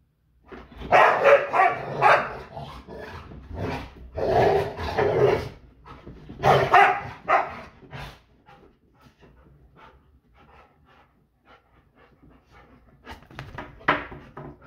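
Labrador retrievers barking in several loud bouts, about a second in, around four seconds, around six and a half seconds, and again briefly near the end, with quieter stretches between.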